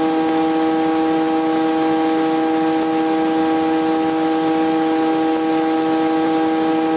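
Helicopter cabin drone heard from inside the aircraft in flight: a steady hum of one unchanging pitch with a stack of overtones over a noisy rush.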